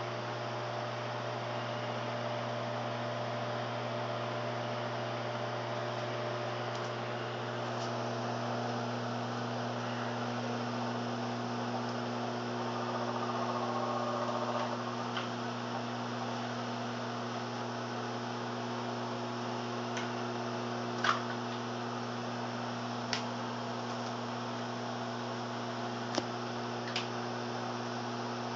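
LG countertop microwave oven running a cooking cycle, giving a steady low hum. A few sharp clicks come in the second half.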